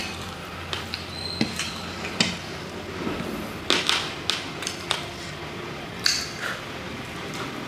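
Mukbang eating sounds: sauce-coated chicken lollipops pulled apart and chewed by hand, heard as scattered short clicks and smacks, with a light knock against a plate now and then.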